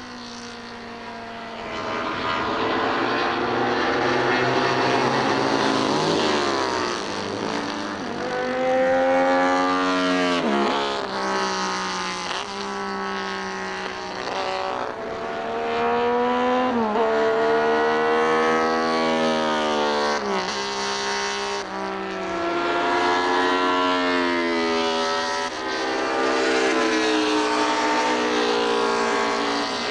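Honda RC166 250cc six-cylinder racing engine running at high revs as the bike laps the circuit. Its pitch keeps climbing and falling, with sharp drops a few times as the gears change.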